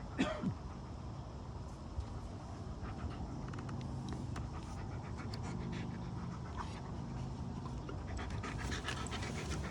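Alaskan Malamute panting steadily, with a brief sharp sound just after the start and scattered faint clicks later on.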